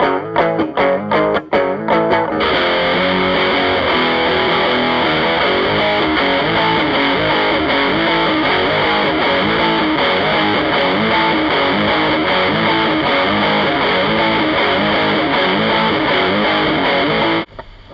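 1997 Fender Jag-stang electric guitar with a Seymour Duncan JB bridge pickup, played through a distorted amp: sharp strummed chords for about two seconds, then a long, unbroken stretch of sustained distorted playing that stops abruptly just before the end.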